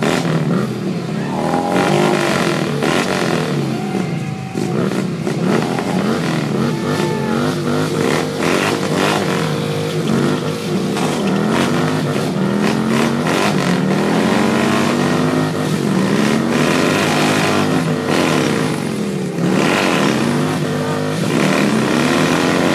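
Motorcycle engines revving hard over and over for a burnout, the pitch swinging up and down with each twist of the throttle. By the end a rear tyre is spinning against the ground and smoking.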